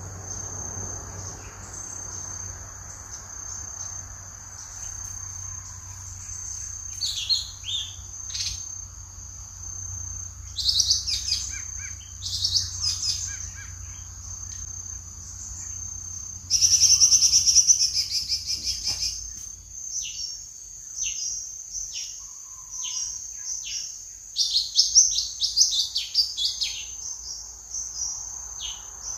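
Lesser green leafbird (cucak ijo mini) singing in bursts of quick varied chirps and short falling whistles, with a loud rapid chatter a little past halfway, over a steady high-pitched insect drone.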